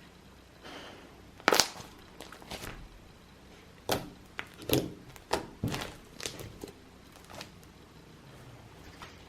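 A series of short knocks and taps, like objects being handled and set down on a surface. A loud one comes about a second and a half in, and a quicker cluster follows about four to seven seconds in.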